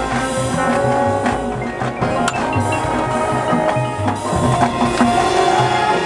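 Marching band playing its field show: brass with a front ensemble of mallet keyboards and drums, over a steady low rhythmic pulse.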